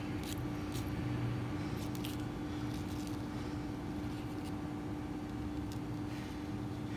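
Steady background hum with one constant low tone, and a few faint light ticks as fishing line and hooks are handled.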